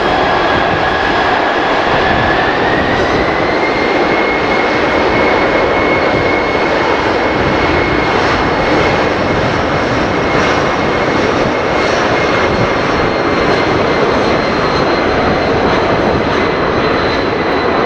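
Boeing C-17 Globemaster III's four turbofan engines at takeoff power: a loud, steady rush with a high whine that rises in pitch a couple of seconds in, then holds steady.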